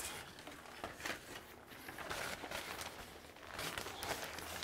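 Faint rustling of fabric as a cloth diaper-changing pad is unfolded and handled, with a few soft handling clicks.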